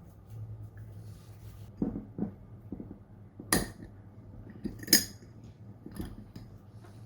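Dishes and cutlery handled in a kitchen: a few light knocks, then two sharp ringing clinks, the second the loudest, over a steady low hum.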